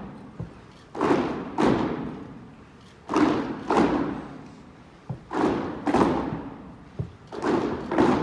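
A troop of RCMP cadets stamping their boots in unison on a wooden drill-hall floor during foot drill: four double stamps, each pair about half a second apart and coming roughly every two seconds, each ringing on in the large hall.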